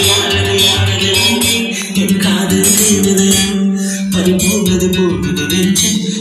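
A Tamil film song with a jangling percussion beat and strong bass, played loud through a vehicle's newly installed 4.1-channel amplifier, speakers and subwoofer on a system test.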